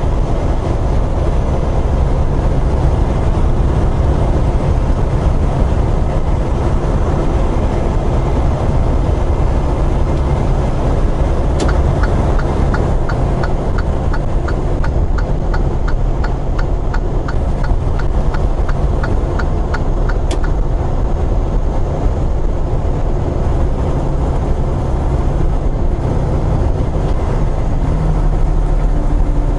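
Inside a semi truck's cab at highway speed, a steady low diesel engine and road drone. About a third of the way in, the turn-signal indicator starts ticking about twice a second and runs for roughly nine seconds, with a sharper click of the signal stalk at its start and at its end.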